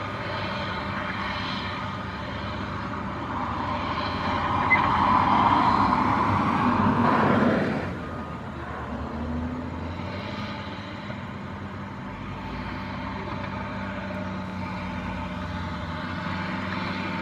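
Diesel engines of heavy earth-moving trucks working, a steady rumble that swells louder for a few seconds, about four seconds in, then eases back.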